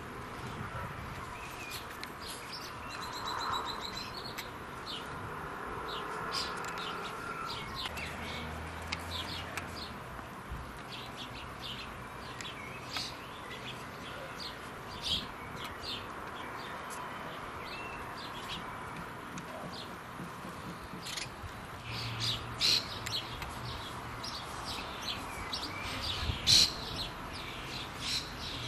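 Garden birds, among them house sparrows, chirping: many short scattered chirps, busier and louder near the end.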